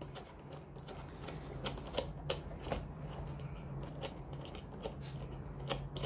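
Small irregular clicks and ticks as the thumb screw is turned out of the GoPro Hero 8's mount by hand, over a low steady hum.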